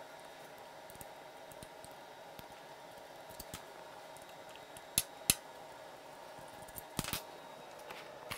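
Light metallic clicks and taps from hand tools and parts at a motorcycle's engine-front generator as it is taken apart: two sharp clicks close together about five seconds in and a few more about seven seconds in, over a faint steady hum.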